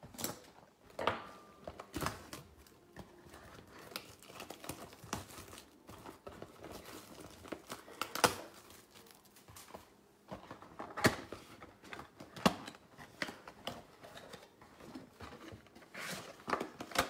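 Crinkling and tearing of plastic and foil trading-card packaging, with irregular sharp clicks and rustles of cards and packs being handled.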